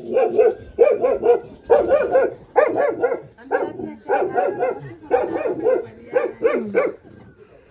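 A dog barking repeatedly in quick runs of two to four barks.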